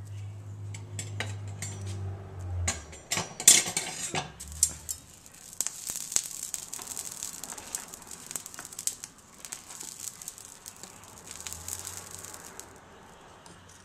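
A slotted metal spoon clinks against a stainless steel pan and stirs rice through boiling, foaming liquid, with a loud run of knocks about three seconds in. A steady bubbling hiss with small clicks follows until near the end. A low hum is heard in the first few seconds.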